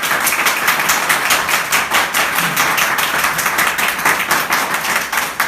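An audience applauding, many hands clapping fast and steadily.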